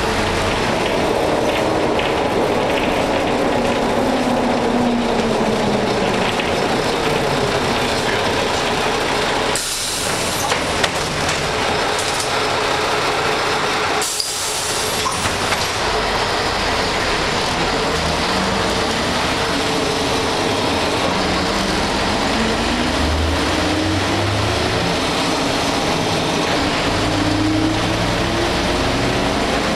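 Ikarus 280 bus's diesel engine heard from inside the cabin, its note falling as the bus slows. Two sharp compressed-air hisses come about ten and fourteen seconds in, from the pneumatic folding doors and brakes at the stop. The engine note then climbs again in steps as the bus pulls away through its manual gearbox.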